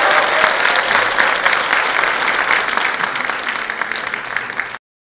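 Audience applauding: dense clapping from many hands that tapers slightly and cuts off abruptly near the end.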